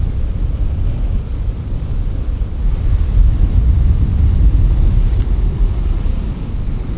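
Wind buffeting the microphone: a loud, gusting low rumble that swells and eases.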